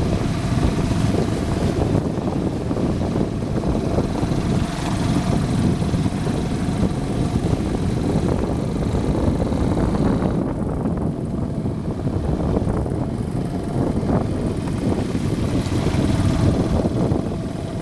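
Suzuki Djebel 200's single-cylinder four-stroke engine running while riding, with wind buffeting the microphone.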